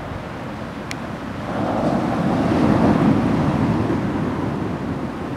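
Heavy storm surf breaking and washing up the beach, with wind buffeting the microphone; the rush of a breaking wave swells up about one and a half seconds in and fades.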